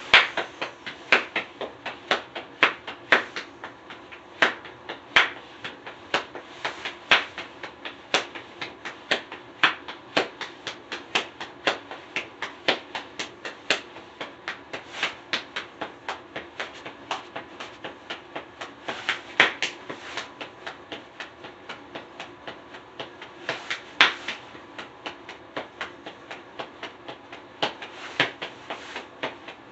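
Hands slapping and tapping out a percussion beat in a steady rhythm of about two to three sharp hits a second, with louder accented slaps every second or two.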